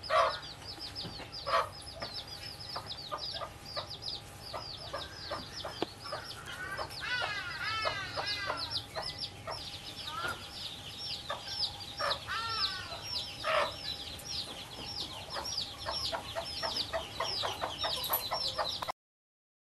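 Chicks peeping constantly in short, high, falling notes, with a hen clucking low in between. A louder flurry of calls comes about seven seconds in. The sound cuts off abruptly near the end.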